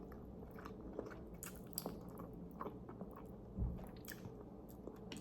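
Faint chewing and mouth sounds of someone eating noodles, with a few soft clicks and a small thump.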